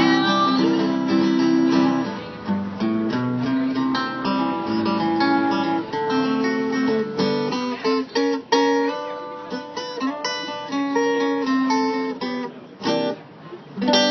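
Acoustic guitar playing an instrumental passage of a country song, picked notes and strummed chords without singing.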